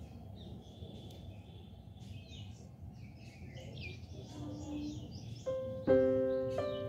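Small birds chirping and twittering over a low outdoor background noise. About five seconds in, background piano music starts with a few struck notes that ring on.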